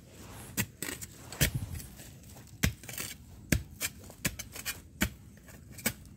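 A hand scraping and picking in dry soil and leaf litter while pulling up termite mushrooms, giving irregular sharp clicks and crackles about every half second to second.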